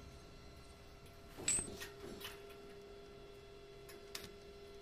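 Stick arc welder striking a few brief tack welds on stainless steel railing tube, the loudest burst about a second and a half in, with smaller ones later. A steady hum sets in with the first burst.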